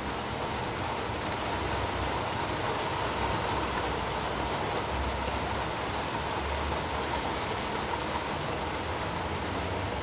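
Steady rumbling hiss of background noise, with a few faint, sharp ticks as side cutters snip gold-plated pins off an electronic connector.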